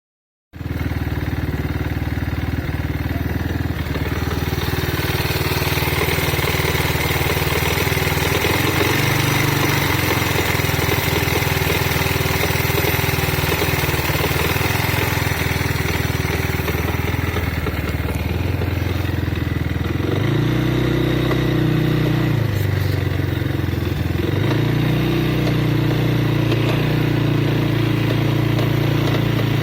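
Triton Baja 300 supermoto engine running, its revs raised a few times, with a metallic rattling from the crankcase, a fault that at times keeps the bike from accelerating when pulling away.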